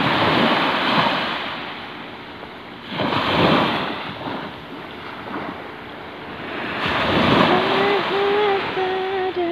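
Small sea waves breaking and washing up a sandy shore, swelling three times, about every three to four seconds.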